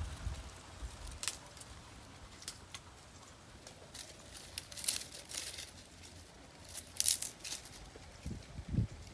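Dry twigs and grass crackling and snapping as they are handled by hand, in scattered sharp crackles with a busier cluster about five seconds in and another about seven seconds in.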